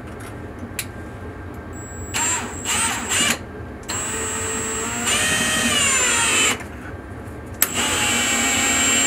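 Cordless drill-driver driving a screw through a galvanized plumber's tape strap into a wooden floor joist. A few short bursts of the motor come first, then two longer runs of its whine, the first of them about four seconds in.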